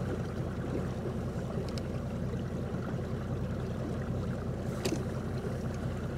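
Boat underway at slow speed: a steady low motor rumble with water washing along the hull.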